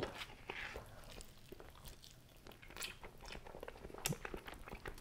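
Faint close-miked chewing and biting of cheesy naan bread dipped in shakshuka: scattered small mouth clicks.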